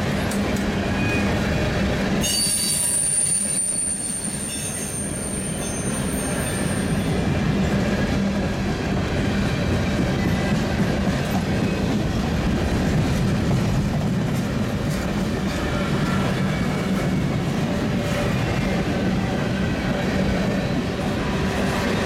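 Freight train of boxcars rolling past close by: a steady rumble and rattle of steel wheels on the rails. A high-pitched wheel squeal sounds from about two seconds in and fades out around seven seconds.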